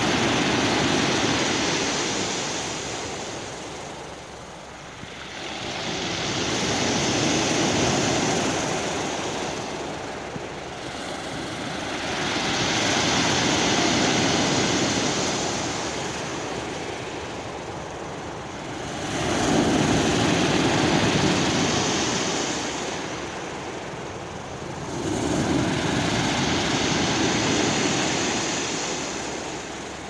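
Sea waves breaking and washing over a round-pebble beach, surging in and drawing back in about five swells, roughly one every six seconds.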